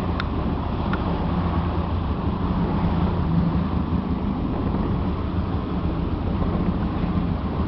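Motorboat engine running steadily with the boat under way, a constant low hum under the rush of wind and water.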